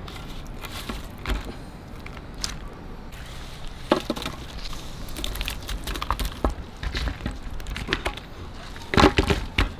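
Grilled chicken tikka pieces being slid off a thin metal skewer by hand onto a banana leaf on a steel plate: scattered light clicks, scrapes and soft knocks, with a louder cluster of knocks near the end.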